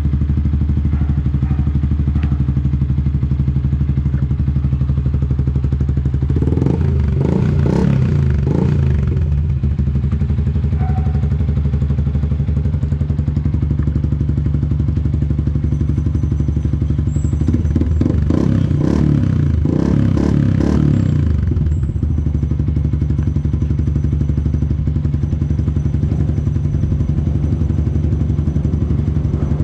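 Yamaha Sniper 150's single-cylinder four-stroke engine idling through a UMA Tru Pressure aftermarket exhaust, blipped on the throttle in two short bursts with a steady idle between and after.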